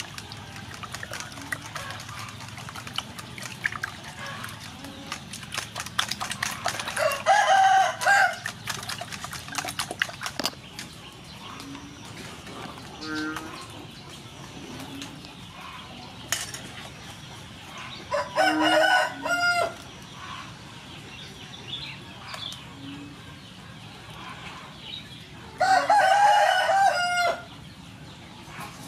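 A rooster crowing three times, each crow about a second and a half long, about seven, eighteen and twenty-six seconds in. Between them, a coil whisk beating eggs clicks rapidly against a steel bowl, mostly in the first ten seconds.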